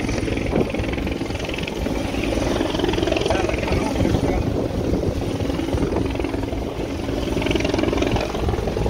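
A steady, continuous engine drone from the rescue craft.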